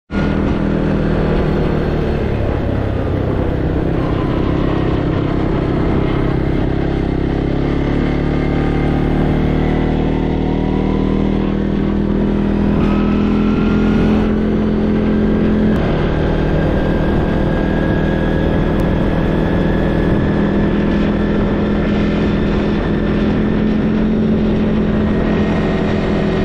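CFMoto ATV engine running under way at a fairly steady speed, its pitch shifting now and then, with a thin whine that rises from about nine to fourteen seconds in as it picks up speed.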